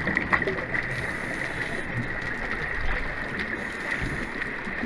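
Steady underwater rushing noise with a thin, steady high tone running through it and a few faint crackles.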